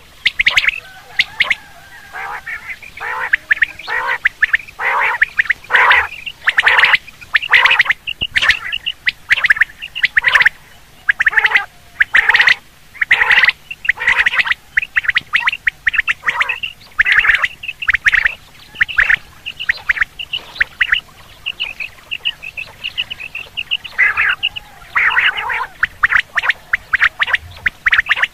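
Common quail calling over and over: short calls repeated in quick clusters, with hardly a pause longer than a second.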